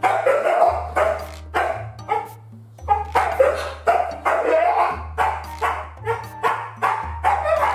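Siberian husky barking repeatedly, a couple of short barks a second, over background music with a steady bass line.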